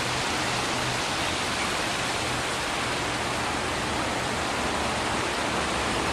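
A steady, even rushing noise that does not change, with a faint low hum underneath.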